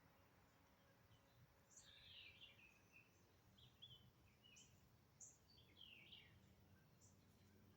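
Faint, scattered short bird chirps and calls over a low background noise.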